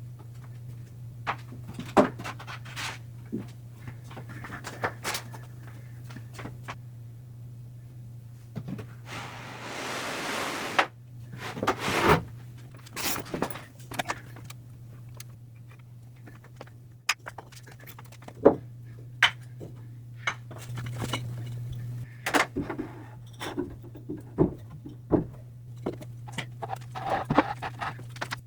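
Things being shifted and set down in a cluttered corner of shelving: scattered knocks and clatters, with a longer scraping sound about nine seconds in, over a steady low hum.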